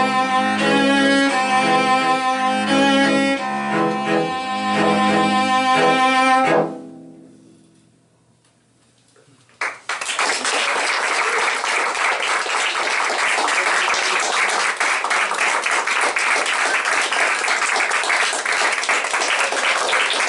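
Four cellos play loud sustained closing chords that stop about a third of the way in and ring away to near quiet. A click follows, then audience applause.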